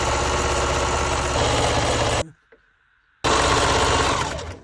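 Sewing machine stitching at speed in two runs: one of about two seconds, then, after a pause of about a second, another to the end.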